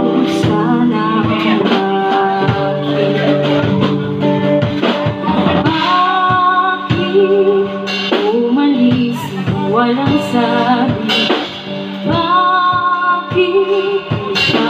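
Small live band playing: a woman singing through a microphone over guitar and a drum kit keeping a steady beat.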